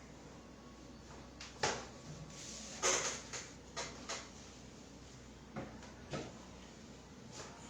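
Hands-on back adjustment for a twisted lumbar spine: about eight short, sharp cracks and knocks, the loudest about three seconds in.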